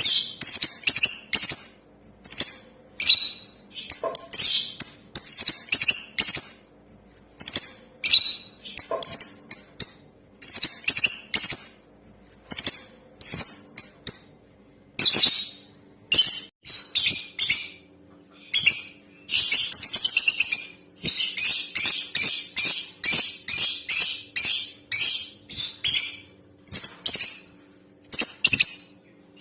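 Female lovebird calling: runs of sharp, high-pitched chirps broken by short pauses, with a longer unbroken run of rapid chirps about twenty seconds in.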